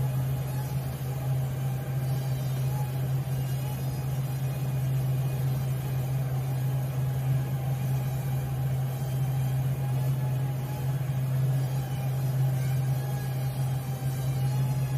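Nano quadcopter in flight: a steady low hum with a higher propeller whine that wavers slightly in pitch.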